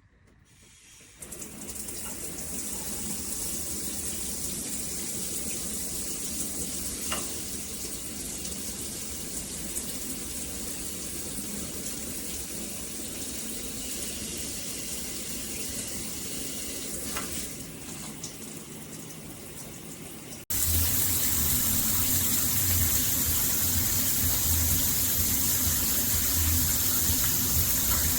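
AMORIX shower head spraying water in a steady rushing hiss that starts about a second in. Two-thirds of the way through it cuts abruptly to a louder, closer spray with a low throbbing underneath.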